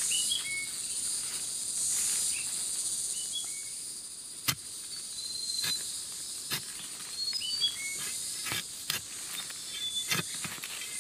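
Forest ambience: a steady high insect buzz with short bird chirps scattered throughout. From about four seconds in, a series of sharp clicks and knocks; these are the loudest sounds.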